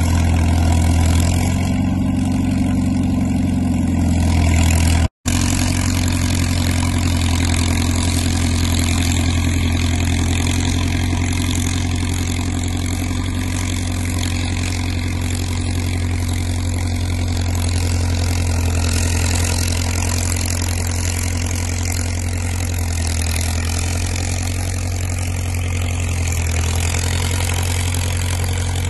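International Harvester T-9 crawler's engine running steadily as the machine pulls a snow road drag, with a brief dropout about five seconds in.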